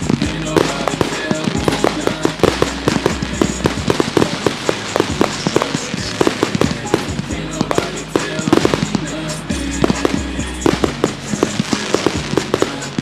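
Fireworks going off in rapid succession, many sharp bangs and crackles close together, over a rap song with a steady bass line.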